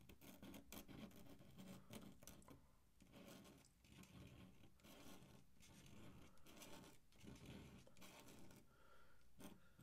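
Very faint scratching of an ink drawing tool moving across paper in short, irregular strokes.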